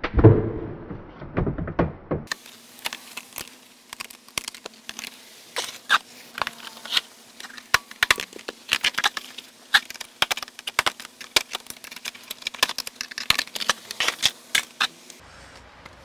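Plastic lower dash trim panel being pulled free under a car's steering column, with a few heavy thumps and pops. From about two seconds in comes a long run of sharp clicks and plastic rattles from the panel and its wiring being handled, over a faint steady hum.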